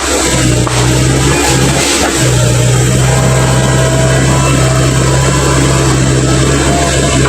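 Komatsu PC135 hydraulic excavator's diesel engine running steadily, its low drone dropping out briefly a few times in the first two seconds.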